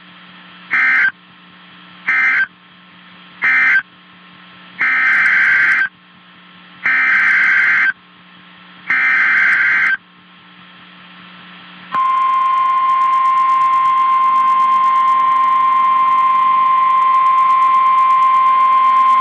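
EAS (SAME) digital data bursts on NOAA Weather Radio. First come three short screechy end-of-message bursts, then three roughly one-second header bursts announcing the next alert. About halfway in, the steady single-pitch 1050 Hz warning alarm tone starts and holds, signalling that a warning message follows.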